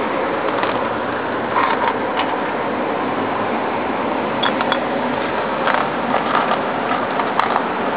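Steady background hiss, with a few light clicks and taps from small hard metal-stone figurines being handled.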